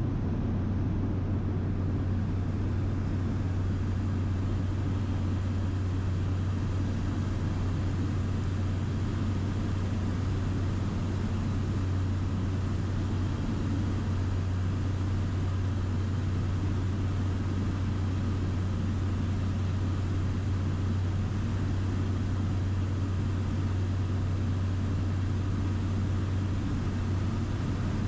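Steady cabin noise of a small plane in flight: a constant deep hum with an even hiss over it.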